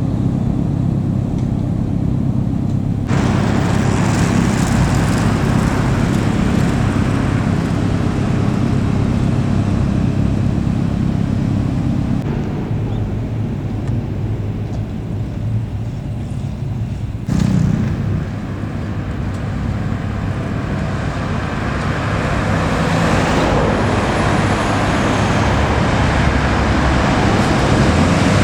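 Motor vehicle driving on a road: a steady low engine drone under tyre and wind noise. The noise swells about three seconds in, eases off about halfway through, and builds again.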